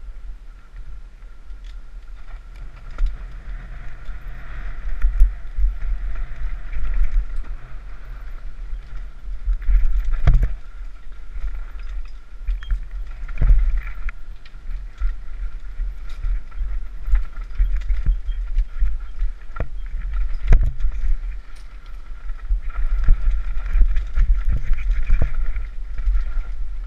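Mountain bike descending a rough trail at speed, heard from an on-board camera: heavy wind rumble on the microphone and the rattle of the bike, with several sharp knocks as it hits bumps.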